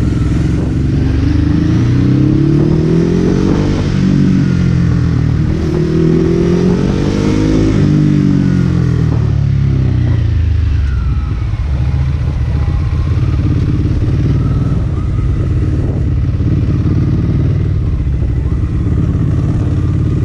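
Ducati Hypermotard SP's L-twin engine heard from on the bike while riding in town. The revs climb twice with a drop between, a gear change, then the rider eases off and it runs steadier at lower revs.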